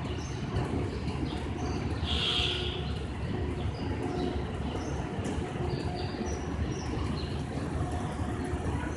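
Escalator running with a steady low rumble, faint tones recurring about once a second as the steps pass, and a few brief high chirps.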